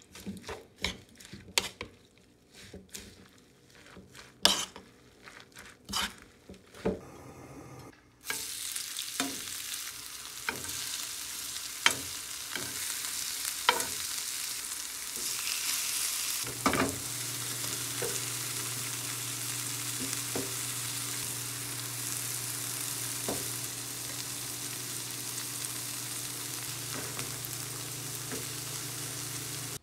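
A metal spoon mixing a batter of egg and shredded mushrooms in a wooden bowl, tapping and clicking against it. About eight seconds in, a steady sizzle of oil frying starts suddenly as the batter goes into a hot nonstick pan, with spoon clinks against the pan. About halfway through, a loud click is followed by a steady low hum.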